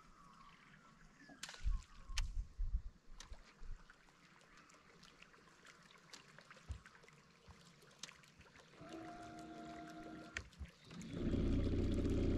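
Bow-mounted electric trolling motor humming for a second or two, then running louder for about two seconds near the end with its propeller churning water. A few knocks come earlier, in the first three seconds.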